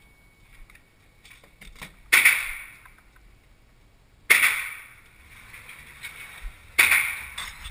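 Three 9 mm pistol shots from a Smith & Wesson SW9VE, spaced about two to two and a half seconds apart. Each is a sharp crack with a short reverberating tail from the indoor range, and there are small clicks between the shots.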